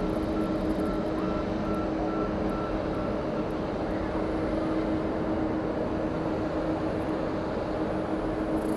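Steady drone of jet airliner engines running, an even roar with a fixed hum through it. A faint beep repeats about twice a second during the first few seconds.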